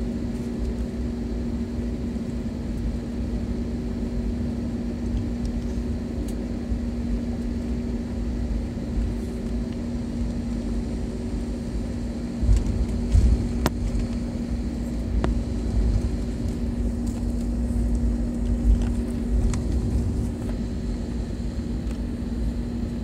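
Cabin noise of a jet airliner taxiing: a steady engine hum with a constant low tone. Low rumbling from the wheels rolling over the taxiway grows heavier and bumpier about halfway through.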